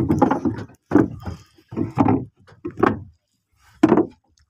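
About five heavy knocks on a wooden boat's planking, roughly a second apart.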